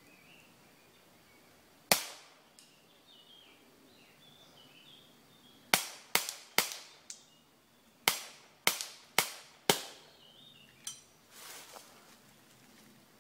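Airsoft gun firing single shots, each a sharp crack: one about two seconds in, then a quick run of three, then four more about two a second, with a few much fainter ticks between them.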